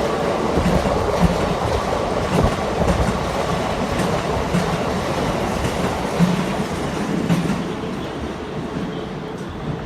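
Keikyu 2100-series electric train pulling out, its wheels clacking unevenly over the rail joints, the running noise fading over the last couple of seconds as it moves away.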